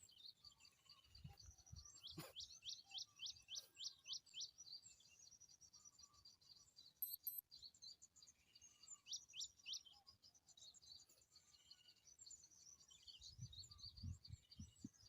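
Small birds chirping faintly: a quick run of about eight high, falling notes about two seconds in, another short run around nine seconds in, and scattered high chirps throughout.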